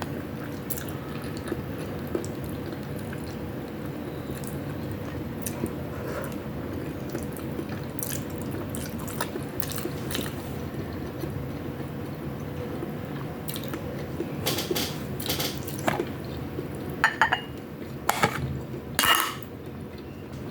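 Close-miked eating sounds: steady wet chewing and mouth noises, with sharp clicks that come more often and louder in the last few seconds.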